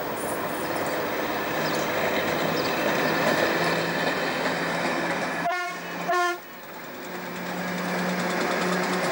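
British Rail Class 307 electric multiple unit passing close by, a steady rush of running noise with a low steady hum. About six seconds in, the sound breaks up briefly and drops away, then builds back up.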